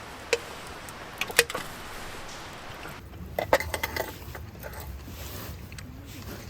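Sharp clinks and taps of small hard objects being handled, like camp tableware: one near the start, a couple about a second in, and a quick cluster a little past halfway.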